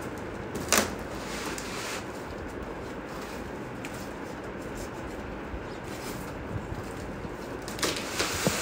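Cardboard packaging being worked open by hand: a sharp crack about a second in, then a brief rustle and scrape, and a few knocks and scrapes near the end, over a steady background hiss.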